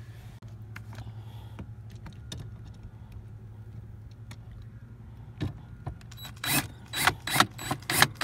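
Cordless drill driving a Torx screw into a plastic dash panel. It runs in a string of short bursts, about three a second, starting a little over five seconds in.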